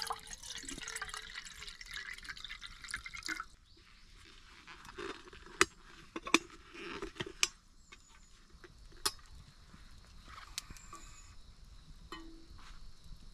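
Water pouring from a bottle into a small metal kettle, a hiss with a faintly rising pitch as it fills, stopping after about three and a half seconds. Then several sharp metallic clinks as the kettle's lid is put on and its wire handle is raised.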